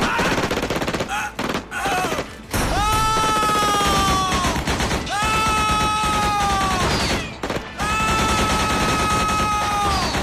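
Rapid, sustained gunfire from a film soundtrack: pistol and automatic weapon shots in quick succession. Three times over the shots, a long wailing tone is held for about two seconds and then falls away at its end.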